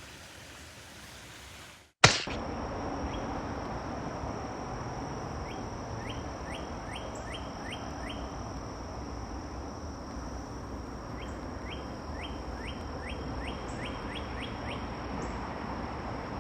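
Outdoor ambience with two runs of short rising chirps, about three a second, over a steady high whine. A sharp click sounds about two seconds in, where the ambience suddenly becomes louder.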